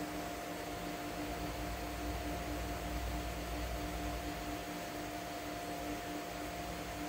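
Aquarium pump running: a steady hiss with a constant hum, its lower tone pulsing evenly.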